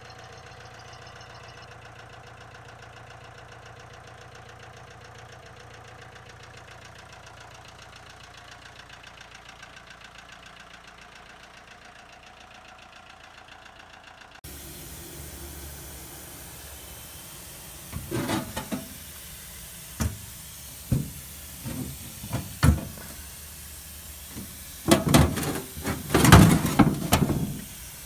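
Grinder parts being cleaned: a steady low hum, then a hissing spray broken by a series of short, loud blasts and knocks in the second half.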